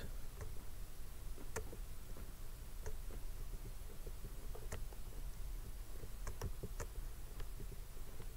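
Faint, irregular clicks and taps from handwriting on a computer with a digital pen input, over a low steady hum.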